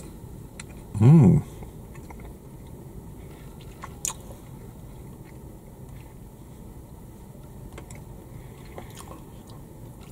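A person chewing a mouthful of soft, spongy chocolate-and-orange doughnut with closed mouth. About a second in there is a short hummed 'mmm' whose pitch rises and falls.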